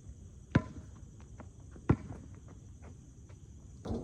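A basketball being bounced: two loud bounces about a second and a half apart, with a few fainter taps between them, over a steady high chirring of crickets.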